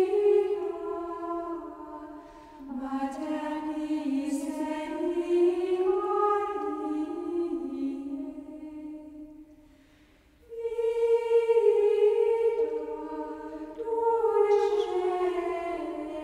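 Choir singing slow, drawn-out phrases, falling almost silent briefly about ten seconds in before the next phrase begins.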